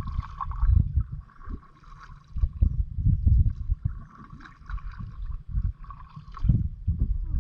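Kayak paddling: paddle strokes splashing and dripping in lake water, uneven and irregular. An uneven low rumble of wind on the microphone runs underneath.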